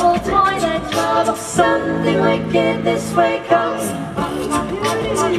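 A small a cappella choir of male and female voices singing live in close harmony, with a long held chord in the middle.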